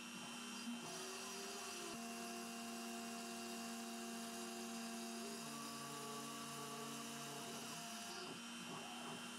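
CNC milling machine's spindle running while an end mill cuts a plastic block: a steady machine hum and whine whose tones shift a couple of times as the cut moves, about two seconds and five and a half seconds in.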